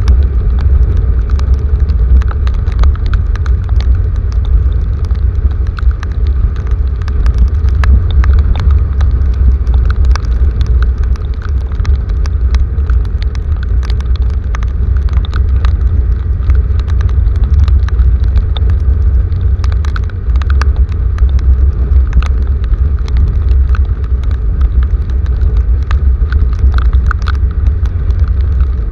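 Heavy rain, with many sharp drop clicks over a loud, steady low rumble.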